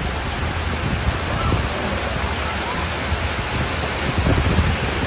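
Floodwater rushing down a street in a fast, steady torrent, a dense even rush with a deep low rumble.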